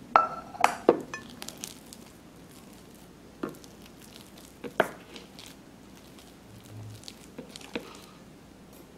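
Spatula stirring mashed potatoes in a glass bowl, with soft squishing and several knocks of the spatula against the bowl and pot: a quick cluster in the first second, then single knocks at intervals.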